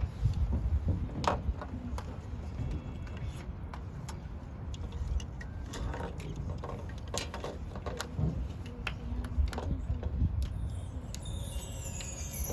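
Scattered knocks and clatter of a marching band's instruments and equipment over a low rumble, with a shimmering chime run sweeping down starting near the end.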